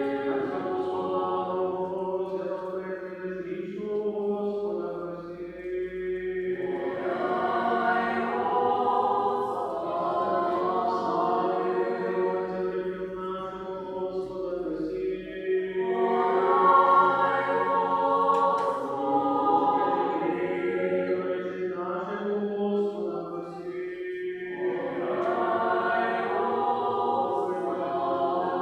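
Church choir singing an unaccompanied liturgical chant in long sustained phrases, with brief breaths between phrases.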